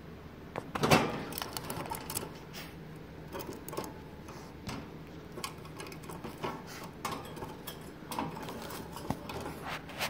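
Irregular sharp clicks and taps close to the microphone, the loudest about a second in, spaced unevenly through the whole stretch.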